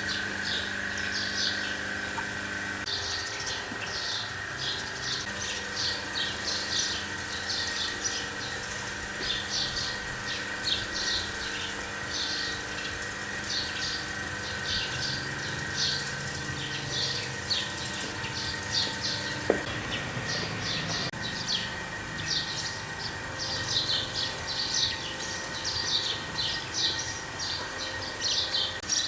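Small birds chirping repeatedly over a steady high-pitched hum, with one sharp click about two-thirds of the way through.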